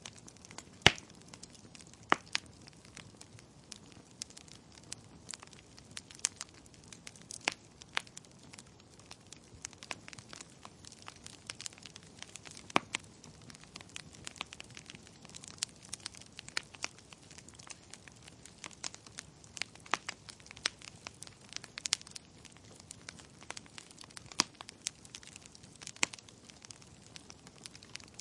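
Wood fire burning in a fireplace: logs crackling with irregular sharp pops over a faint steady hiss.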